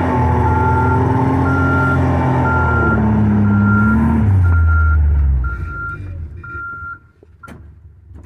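Vehicle engine labouring in deep snow, its pitch dropping about four seconds in, then winding down and stopping about five and a half seconds in. An electronic warning beep sounds a little faster than once a second until near the end, and a couple of sharp clicks follow.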